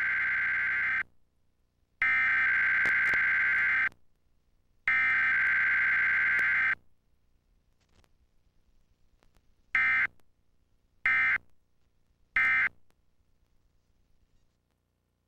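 Emergency Alert System test data tones: three long, harsh digital header bursts of about two seconds each, a second apart, then a few seconds later three short end-of-message bursts.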